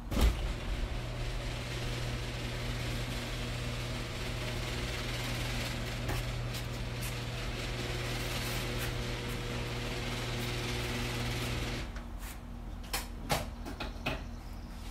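Electric garage door opener raising an overhead door: a sharp clunk as it starts, then a steady motor hum that cuts off about twelve seconds in. A few short knocks and clicks follow.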